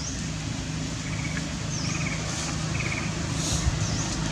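Steady low hum of an idling engine, with a few short, high bird chirps and brief trills over it.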